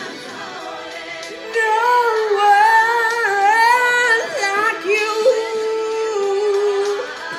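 A woman singing unaccompanied: softer for about the first second and a half, then a loud phrase of gliding notes with vibrato, ending on a long held note.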